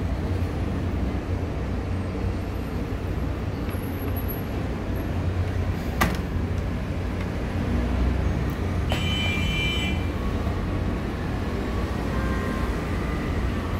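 Steady low background rumble, like distant traffic, with a single sharp click about six seconds in and a brief high-pitched tone a few seconds later.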